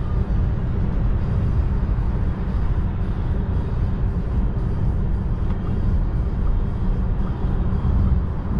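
Steady road and wind noise inside the cabin of a Volkswagen ID.3 electric car cruising on the motorway at about 95 km/h, mostly a low tyre rumble with a fainter hiss above it and no engine sound.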